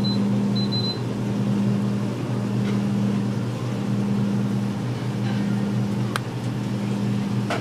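Steady low mechanical hum of kitchen equipment, swelling and easing every second or so, with a sharp click about six seconds in and another near the end.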